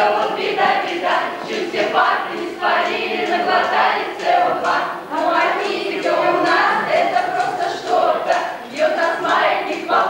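A group of school graduates, mostly girls' voices, singing a song together as a choir.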